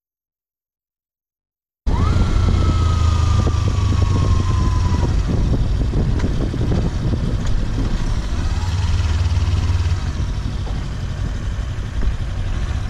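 Kawasaki Versys-X 300 motorcycle's parallel-twin engine running under way, with wind rushing over the microphone, cutting in suddenly about two seconds in. A whine falls in pitch for a few seconds as the bike rolls off, and the sound eases a little near the end as it slows for a stop.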